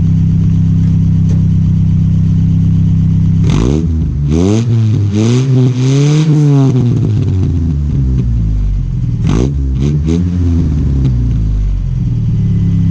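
1986 Nissan 720 pickup's engine through a new Doug Thorley tri-tube header, 2.25-inch pipe and Blue Streak long glasspack, idling steadily. From about three and a half seconds in it is revved in a run of quick throttle blips, with a couple more a few seconds later, then it settles back to idle.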